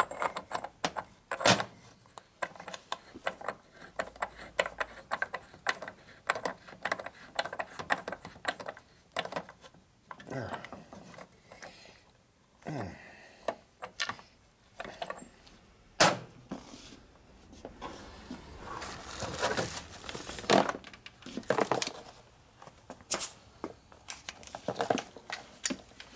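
Irregular metallic clicks, clinks and knocks of steel parts and tools being handled on a Harley-Davidson four-speed transmission case, as a steel sleeve is worked over the mainshaft and tightened by hand to pull the shaft in, with a few louder knocks among them.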